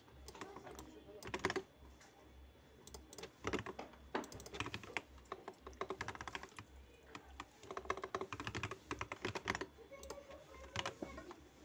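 Typing on a computer keyboard: several bursts of rapid keystrokes with short pauses between.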